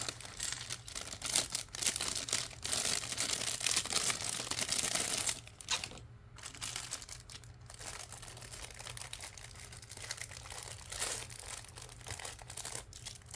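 Plastic Lego parts bags crinkling and rustling as they are handled and opened, loud and busy for about the first five seconds, then dropping suddenly to quieter crackling.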